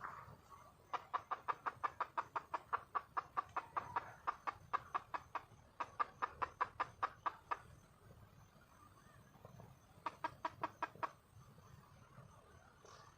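Junglefowl hen giving a long run of rapid, evenly spaced clucks, several a second, for about six and a half seconds, then a second, shorter run of about a second: a hen calling for a mate.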